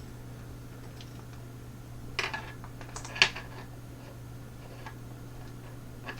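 Small metal clicks and clinks from handling a disassembled lockout-tagout slider padlock and its screw. A few scattered clicks, with louder clusters about two and three seconds in.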